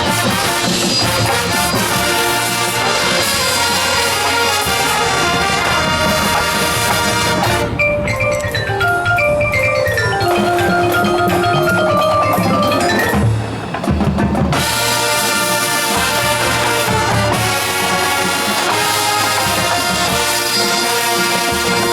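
High school marching band playing its competition show with brass and drums. About a third of the way in the full band drops back and the front-ensemble mallet percussion plays descending runs, until the whole band comes back in loudly near the two-thirds mark.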